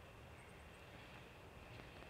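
Near silence: faint outdoor background hiss, with four faint high-pitched ticks about half a second in.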